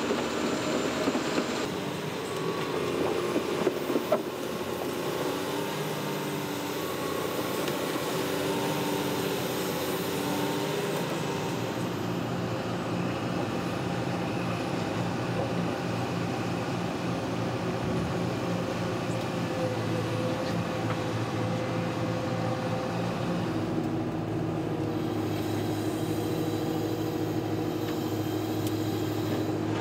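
Caterpillar hydraulic excavator working: the diesel engine and hydraulic pump run steadily under load, their tones shifting in pitch every few seconds as the digging goes on. A few sharp knocks come in the first few seconds.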